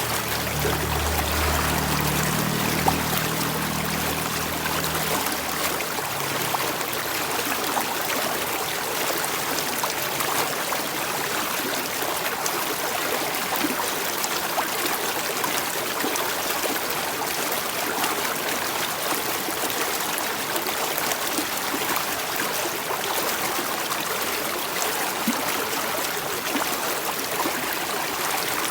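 Stream water flowing and trickling steadily. A low hum sits under it for the first five or six seconds, then fades out.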